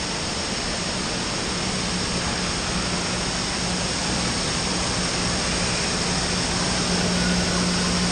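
Steady rushing noise of an indoor water park, with a steady low hum underneath, getting a little louder toward the end.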